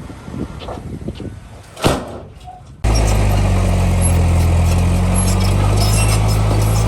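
Heavy earthmoving diesel engine running steadily at close range. It comes in suddenly a little under three seconds in, after a quieter rumble with a single knock.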